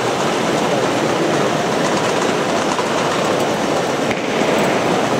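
1:8-scale RC model tractor and Bergmann spreader driving over gravel: a steady mechanical rattling with the crunch of the gravel.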